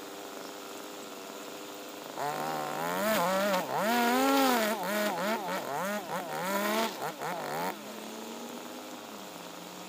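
Husqvarna 542RBS backpack brush cutter's 42 cc two-stroke engine idling, then revved up and down in repeated bursts from about two seconds in as the nylon line cuts grass, dropping back to a steady idle near the end.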